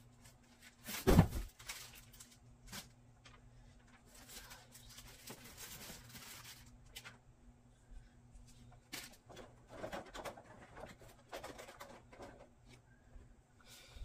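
A cardboard box set down on the floor with a heavy thump about a second in, then scattered rustling, taps and clicks as things are handled.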